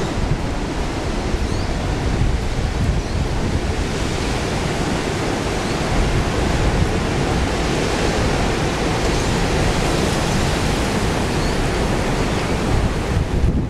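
Strong gusty wind blowing and buffeting the microphone: a heavy low rumble under a steady hiss, with small surges throughout.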